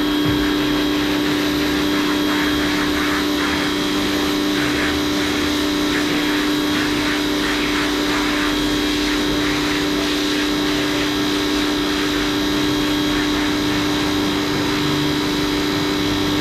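A small electric machine running steadily, with a loud, even hum that does not change.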